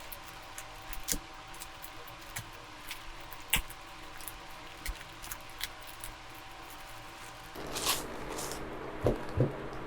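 A delivery parcel being opened by hand: scattered crinkles and clicks of packaging, a louder rustle near the end, then two soft knocks.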